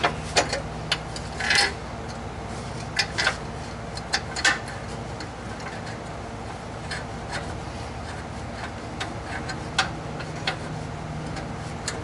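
Irregular light metallic clicks and taps as a new catalytic converter section is fitted to its exhaust flange and the nuts are worked on by hand. The clicks come thickly in the first few seconds and sparsely after, over a steady low hum.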